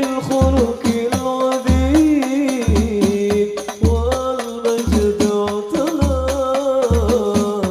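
Banjari-style rebana ensemble playing a sholawat: hand-struck frame drums and a deep bass drum beat a steady, regular rhythm under a held, ornamented melody line.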